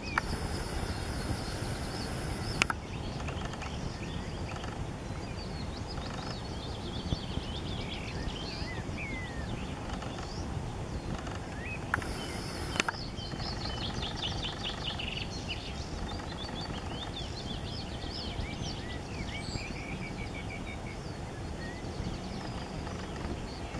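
Small birds singing and chirping on and off over a steady low rumble. A sharp click comes twice, near the start and about halfway through.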